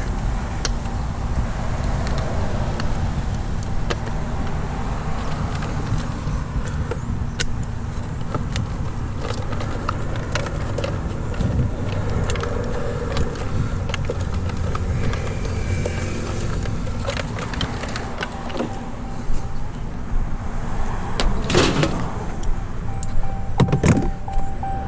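A vehicle engine running steadily in the background, with scattered clanks and knocks of scrap metal being handled and picked up. A few louder knocks come near the end.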